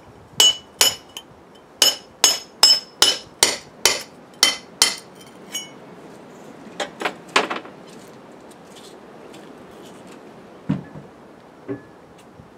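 Hammer and chisel chipping at a concrete paving slab: about ten sharp, ringing metal-on-metal blows at roughly two a second, then three more after a short pause. Two duller single knocks follow near the end.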